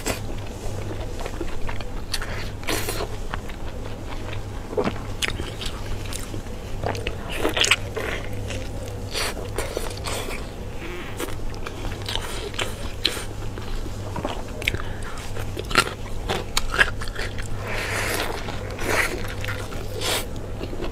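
Close-miked eating: biting, tearing and chewing tripe-wrapped minced lamb balls (du bao yang rou), with many short, irregular sharp bite and mouth noises. A steady low hum runs underneath.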